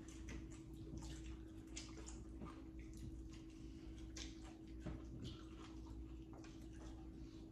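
Quiet eating sounds: scattered small crunches, smacks and clicks of several people chewing and pulling apart crispy fried chicken, over a faint steady hum.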